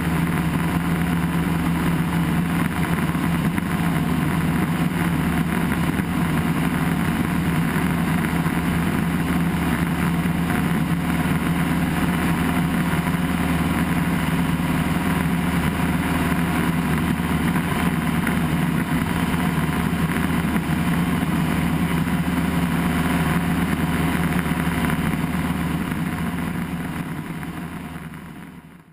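Cessna 172's piston engine and propeller running steadily in flight, a constant drone that fades out over the last few seconds.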